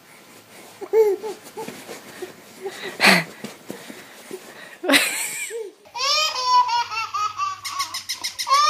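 Laughter in short bursts, including a baby's laughter. About six seconds in, a quick run of short, high-pitched rising-and-falling sounds follows.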